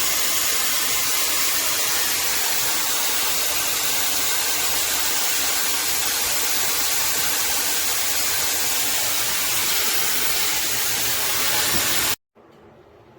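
Shark FlexStyle HD430C hair dryer blowing: a loud, steady rush of air that cuts off abruptly near the end.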